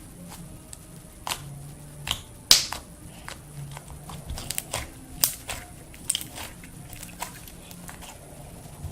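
Slime being squished, poked and stretched by hand, making irregular sharp pops and clicks, the loudest about two and a half seconds in.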